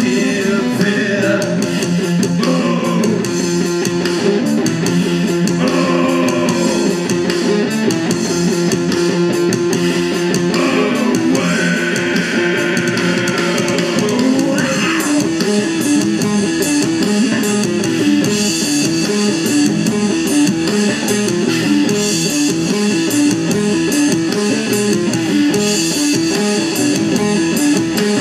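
Live rock band playing loud with electric guitars, bass guitar and drums. A singer's voice rides over the band for roughly the first half, then it turns instrumental, with the guitars repeating a riff over the drums and cymbals.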